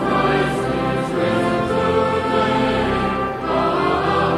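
A choir singing sacred music in slow, held chords, with a new chord coming in about three and a half seconds in.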